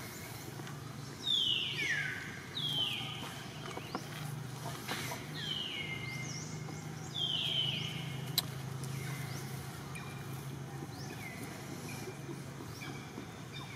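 Baby monkey crying with short, high-pitched calls that fall in pitch, several times with gaps of one to two seconds, louder in the first half. A low steady hum runs underneath.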